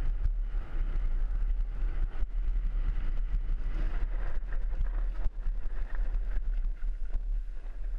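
Mountain bike descending a dry dirt trail at speed: a steady rush of tyres on dirt under heavy wind buffeting on a helmet-mounted camera's microphone, with frequent small clicks and rattles from the bike and loose stones.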